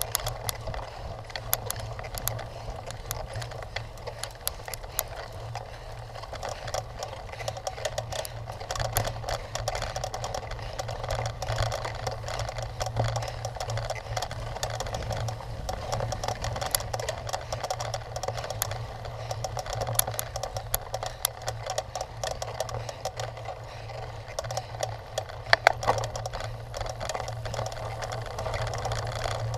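Cyclocross bike ridden over rough ground: constant rattling and clicking from the bike over a steady low hum, with a few louder clatters about 26 seconds in.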